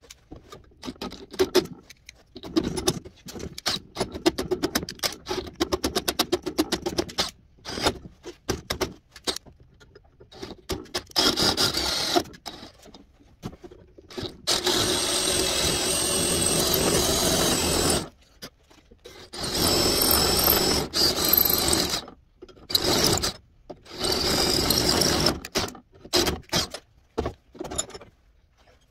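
Power drill with a 7/16-inch bit drilling out the weep hole in an engine coolant housing, to enlarge it for a 1/4-inch NPT tap. It runs in many short trigger bursts at first, then in longer steady runs of two to three seconds each in the second half.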